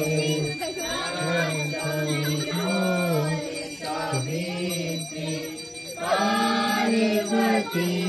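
A song with a voice singing over music, with bell sounds in it, in the style of a Hindu devotional song.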